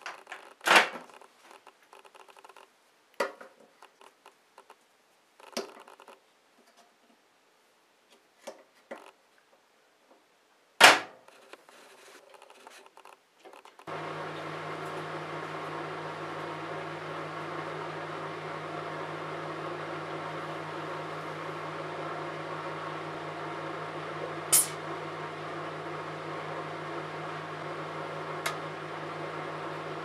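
A few knocks and clicks as a dial-controlled countertop microwave is loaded and set. About 14 seconds in, the microwave switches on and runs with a steady hum. Two short sharp clicks come later.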